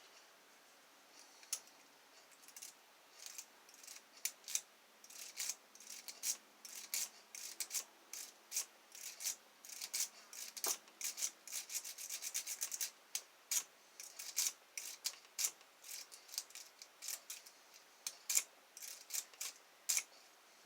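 Metal lock pick scraping and clicking against the pins inside a 7-pin ILCO lock cylinder: faint, irregular ticks and scrapes, coming thicker and faster in the middle.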